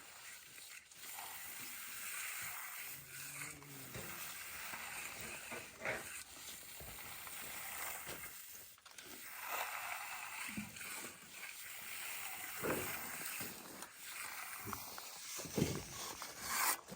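Faint scraping strokes of concrete-finishing tools drawn across a wet concrete slab, each swelling for a second or two, with a few sharp knocks.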